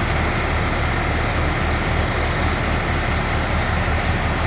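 An engine running steadily at idle: a constant low rumble with a hiss above it.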